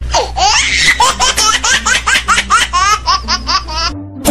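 High-pitched laughter in a rapid, even run of about five laughs a second, each sliding in pitch. It cuts in after a dead silence and stops abruptly near the end, like an edited-in laugh sound effect.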